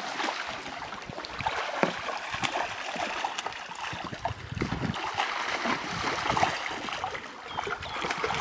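Water splashing and trickling as live trout thrash in a crowded net pen and dip nets scoop them out, with water streaming off the mesh. Many small irregular splashes over a steady wash of water.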